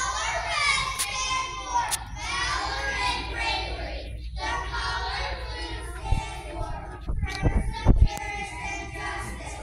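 A large group of young children singing together in a hall. Near the end a few loud low thumps stand out over the singing.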